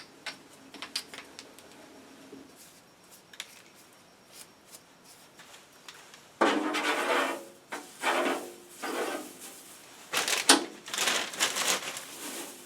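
Aluminum swarf being brushed and scraped off a metal lathe: light scattered ticks of chips at first, then several louder bursts of rattling, rustling metal chips from about six seconds in.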